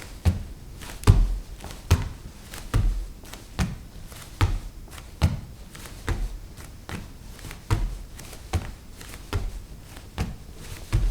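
Bare feet walking on a wooden floor at an even pace, a little over one step a second, each step a soft low thud with fainter creaks and ticks between.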